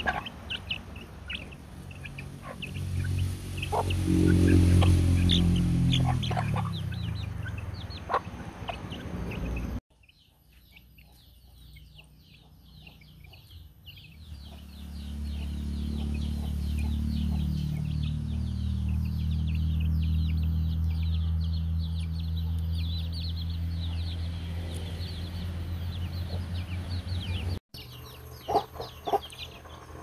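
Young chickens peeping and clucking while pecking grain off the ground, with sharp pecking clicks near the start and end. A low droning hum runs underneath, loudest about four seconds in, and the sound breaks off abruptly twice.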